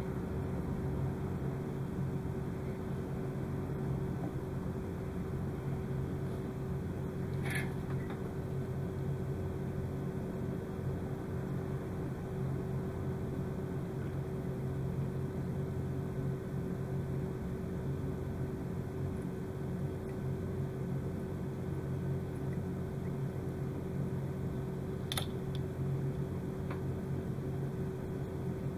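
Steady low mechanical hum, like a small fan running, with two faint small clicks, one about a quarter of the way in and one near the end.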